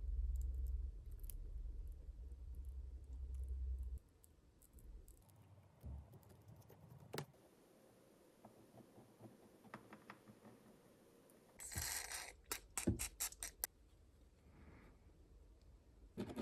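Small hand tools working on a tablet: faint scraping and scattered light clicks. A low rumble runs for the first four seconds, and a quick run of sharp clicks with a brief scratch comes a little after halfway.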